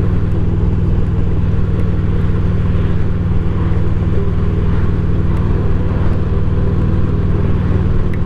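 2007 Harley-Davidson Ultra Classic's V-twin engine running at a steady highway cruise, with a constant rush of wind and road noise.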